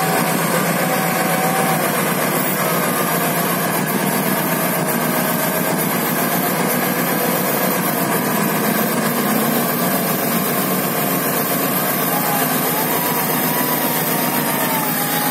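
Engine of an off-road 4x4 running steadily as the vehicle crawls slowly out of thick mud.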